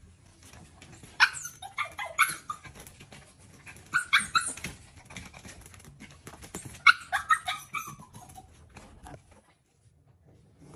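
Shih Tzu–poodle mix puppy begging for food: high-pitched yips and whines in three short bursts, some of the notes falling in pitch.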